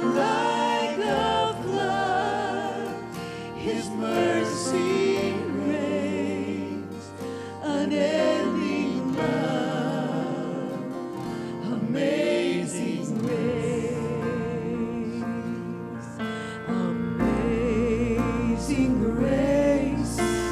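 Worship team of several singers singing a slow gospel chorus with vibrato over instrumental accompaniment; a strong low bass comes in near the end.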